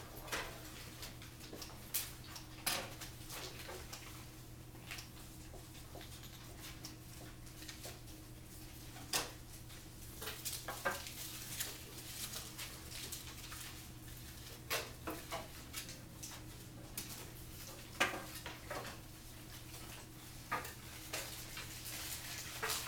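Classroom room noise while students work at their desks: scattered light clicks and knocks, as papers and supplies are handled, over a steady low hum.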